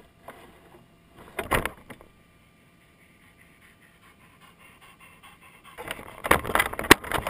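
Knocks and rattles from a Traxxas RC truck's body and chassis, heard through the camera housing mounted on it: a short clatter about a second and a half in, then a longer, louder run of knocks from about six seconds.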